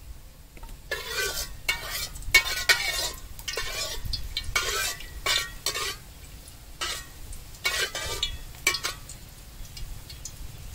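Metal ladle stirring and scraping around the inside of a steel wok, in a run of scraping strokes between about one and nine seconds in.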